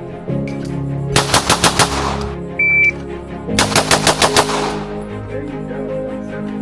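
Two six-shot strings of rapid airsoft gun fire, each shot a sharp crack about a sixth of a second apart, the second string coming about a second after a short high beep like a shot timer's start signal. Background music plays underneath.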